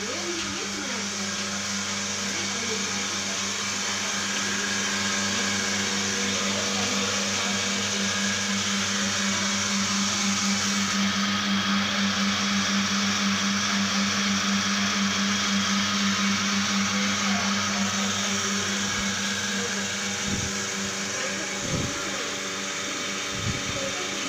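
Milking machine's belt-driven vacuum pump unit running with a steady machine hum, with a couple of light knocks near the end.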